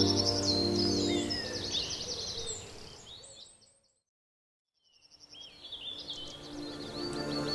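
Background music with bird chirps mixed in, fading out to complete silence about halfway through, then the birdsong fading back in and the music resuming near the end.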